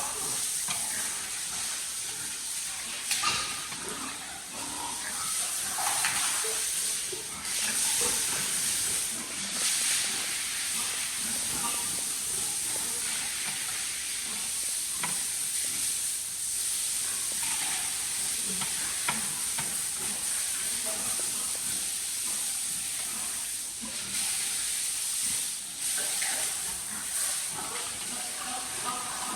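Water spray hissing steadily as a pig pen is washed down, with a few short louder moments now and then.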